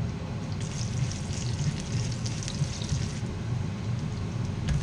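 A kitchen exhaust fan runs with a steady hum under a light crackling sizzle of chopped garlic beginning to fry in oil in a frying pan, from about half a second in. A soft knock comes near the end.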